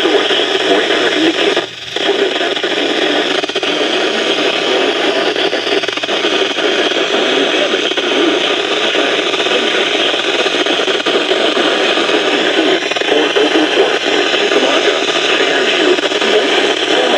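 Radio receiver hissing with static from a weak or untuned signal, a steady rushing noise that dips briefly about two seconds in.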